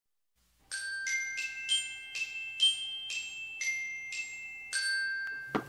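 A short intro jingle of bell-like mallet notes, glockenspiel-like. About ten notes are struck one after another at an even pace, each ringing out. It starts about a second in and cuts off near the end.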